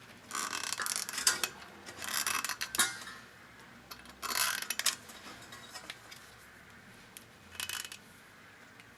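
Utility knife blade scraping old sealant off the mating face of a Honda Dio scooter's aluminium crankcase half. Three scraping strokes of about a second each, then a short one near the end.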